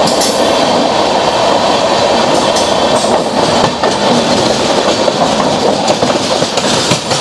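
Two passenger trains passing each other on adjacent tracks, heard from an open coach door: a loud, steady rush of steel wheels on rail, with scattered clicks of wheels over rail joints.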